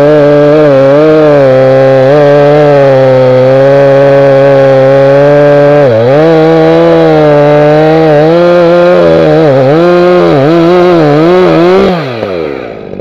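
Holzfforma G366 two-stroke chainsaw, a copy of the Stihl MS361 with its revs raised to match the original, cutting into a tree trunk at full throttle. It runs at a steady high pitch for about six seconds, then the engine speed dips and recovers again and again as the chain bites into the wood. Near the end the revs fall away sharply.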